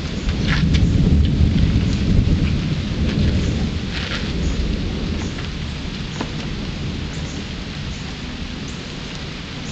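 Steady rain falling on wet pavement, with drops ticking sharply close by. A deep rumble swells up about half a second in and dies away over the next few seconds.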